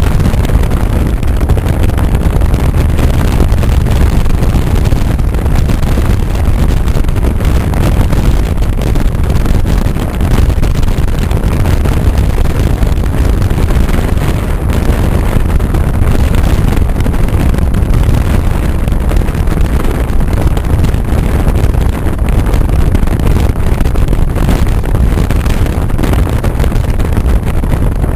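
Loud, steady low rumble of a car driving, road and engine noise heard from inside, with wind buffeting the microphone.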